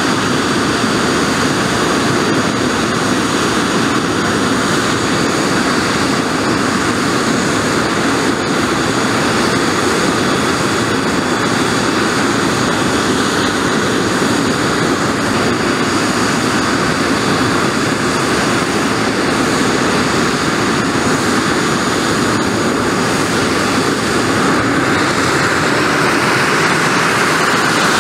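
Soko G-2 Galeb's Rolls-Royce Viper turbojet running steadily at ground idle, a dense rushing noise with a high thin whine, growing slightly louder near the end.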